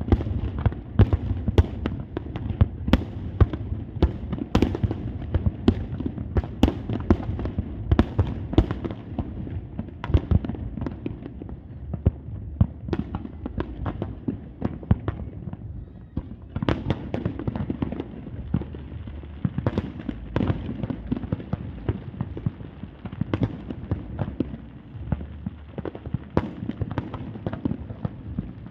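Aerial fireworks bursting in rapid, overlapping bangs and crackles over a low rumble, thinning briefly a little past halfway before building up again.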